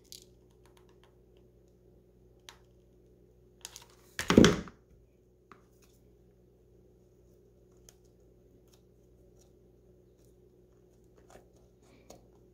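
Quiet handling of a clear plastic box with a few small clicks, and about four seconds in one loud thump as the hot glue gun is set down on the table.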